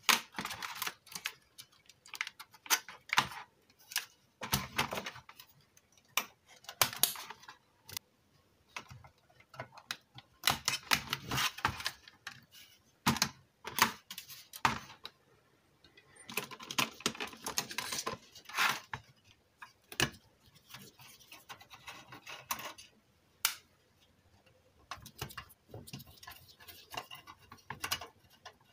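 Sheet-metal chassis of a Pioneer car stereo head unit being handled and taken apart by hand on a workbench: irregular metallic clicks, scrapes and rattles in bunches, with short pauses between them.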